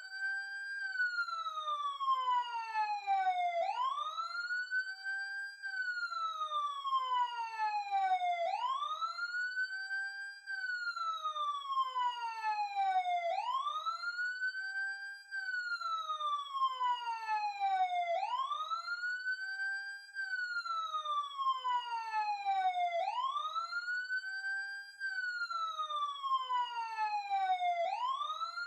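Police siren sounding its wail tone. Each cycle climbs quickly in pitch, then glides slowly down, and the cycles repeat about every five seconds without a break.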